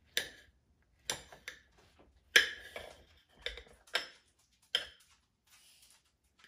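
Kitchen knife slicing through a tomato, the blade knocking against the plate beneath with each cut: about seven sharp clinks, the loudest about two and a half seconds in.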